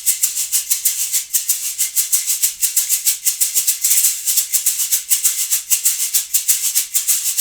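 Latin Percussion Session Shaker, a rubber-coated shaker, played in a fast, even rhythm of short strokes. The sound is loud, with the slight 'shuffle' (smearing of the strokes) that the player notes in this model.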